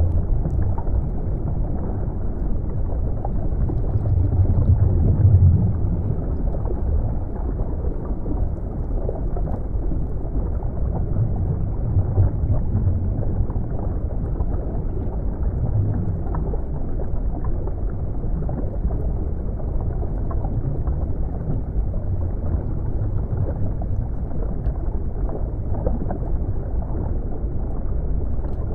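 Underwater ambience: a steady, muffled rumble of water with nothing high-pitched and slow swells in level.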